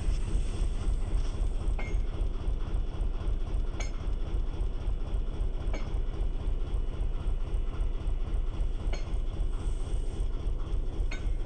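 Narrowboat engine idling, a steady low chug, with a faint click about every two seconds.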